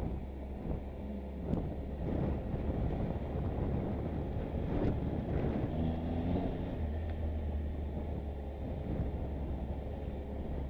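Motorcycle engine running steadily on the move, with wind noise on the microphone.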